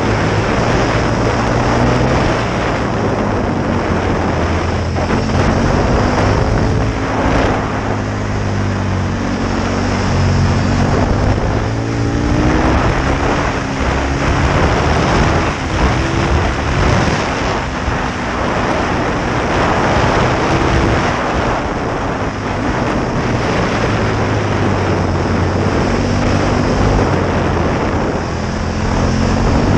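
Aprilia Tuono 1000 R's V-twin engine pulling hard, its revs climbing and dropping again and again as the bike accelerates and backs off between bends, over a steady rush of wind on the microphone.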